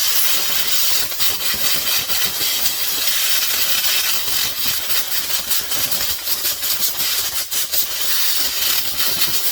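Compressed air blowing caked dirt out of a Husqvarna 55 chainsaw's recoil starter housing: a loud, steady hiss that flickers slightly as the nozzle moves.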